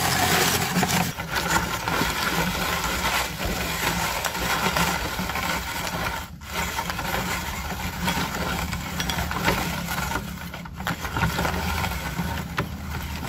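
Hand-cranked steel meat grinder crunching dry, puffed yellow snacks into powder: a dense, steady crackling with a low rumble of the crank and auger beneath, broken off briefly twice.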